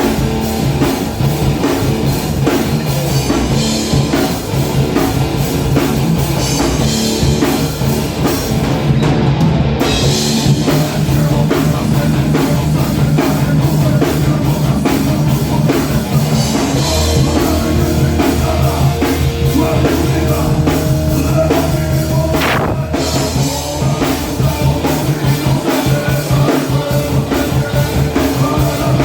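Rock band playing live and loud: drum kit with distorted electric guitars and bass in a heavy, steady groove.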